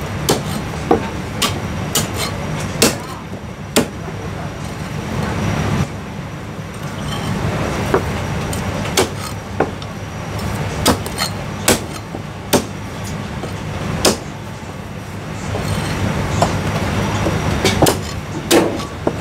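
Cleaver chopping marinated goose wing on a thick wooden chopping block: sharp, irregular knocks, some close together and some a second or more apart, over a steady low hum.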